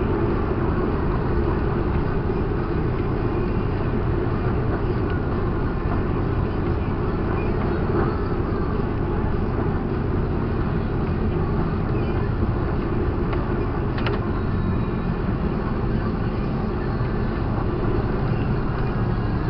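Heavy truck's engine and road noise heard from inside the cab while cruising at a steady speed: an even low drone that holds without change, with one faint click about two-thirds of the way through.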